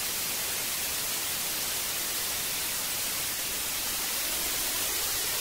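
Static hiss from an analogue television with no signal: steady, even white noise.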